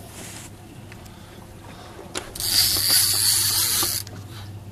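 Drag of a Penn 30 lb big-game fishing reel running out for about a second and a half midway through, a loud high-pitched buzz that stops suddenly: a hooked bluefin tuna is taking line.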